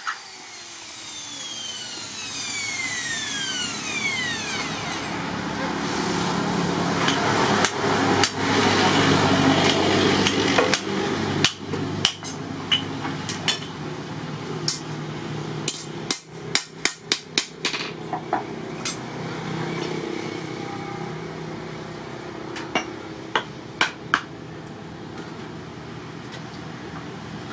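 Hand hammer striking a steel knife blade on a small anvil: irregular metallic blows, with a quick run of strikes about two-thirds of the way through and a few more near the end. A steady background rush swells up in the first several seconds and fades slowly.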